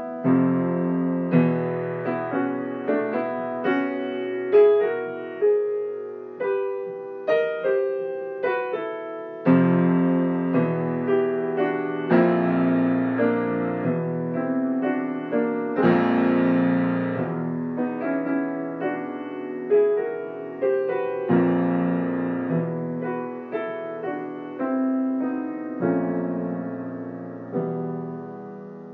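Solo piano improvising in struck chords, open fifths in the bass under thirds and fourths in the right hand, with some loud accents, fading away near the end.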